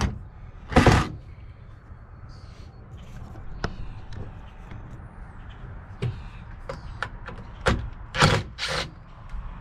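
A solid wood cabinet door set down on deck boards with two knocks, followed by light handling clicks. Near the end, two short bursts from a cordless drill working a hinge screw.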